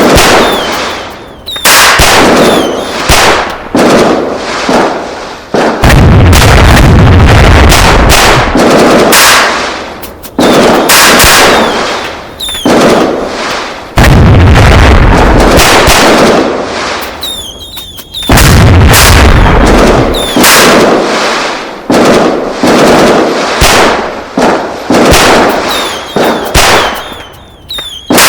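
A rapid series of very loud explosive bangs, one every second or two, each trailing off over a second or more. Several carry a deep rumble that lingers.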